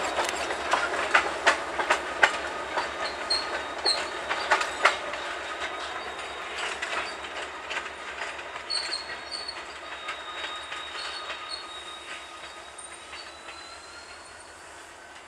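Wheels of a short freight train, an EMD GP30 locomotive and two empty covered hopper cars, clicking over rail joints with short high-pitched squeaks as it rolls away. The sound fades steadily as the train recedes.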